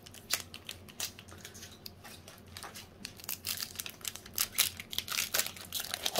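Foil wrapper of a Pokémon TCG booster pack crinkling and being torn open by hand: a run of short sharp crackles that grows denser in the second half.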